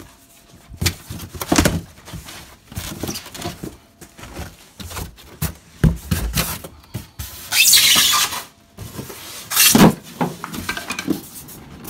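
Cardboard box flaps and a styrofoam packing insert being handled and pulled apart: irregular knocks, scrapes and rubbing, with a longer rustling rush about two thirds of the way in.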